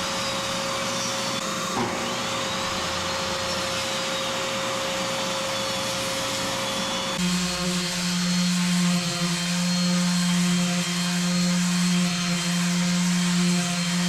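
Workshop power machinery running steadily with a constant hum and whine. About halfway through the sound changes abruptly to a louder, lower, steady hum.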